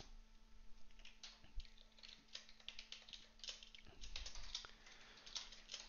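Computer keyboard being typed on: faint, quick, irregular key clicks.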